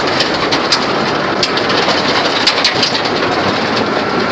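Truck driving fast over a rough road: steady engine and road noise with continuous loose metallic rattling and clattering.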